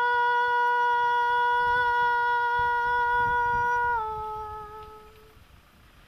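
A single long held musical note, steady in pitch, from a voice or wind instrument. About four seconds in it dips slightly lower and then fades out.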